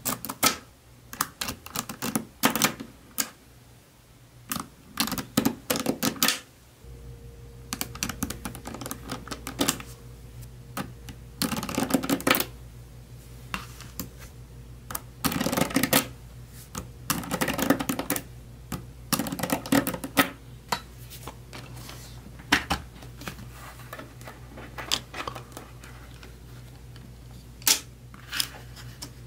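Small neodymium magnetic balls (Neocube) clicking and clattering against one another as fingers press and slide them into a flat sheet; irregular runs of sharp clicks with short pauses between.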